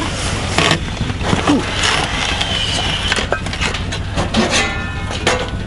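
Rustling of plastic food bags and small clinks of cups and dishes as people eat, over a steady low hum.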